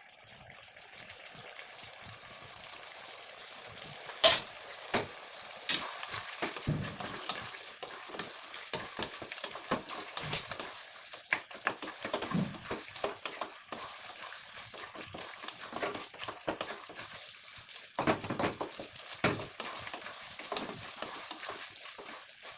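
Mutton curry sizzling in a pan while it is stirred, with the spoon scraping and clicking against the pan. There are two sharp clanks about four and six seconds in.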